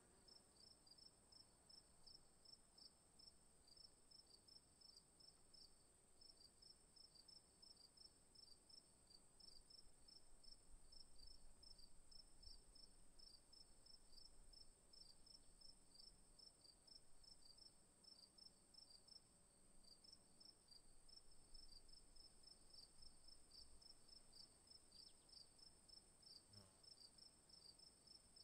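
Near silence with a faint, steady high-pitched whine and a faint high chirping that repeats several times a second, like a cricket. There is one faint knock near the end.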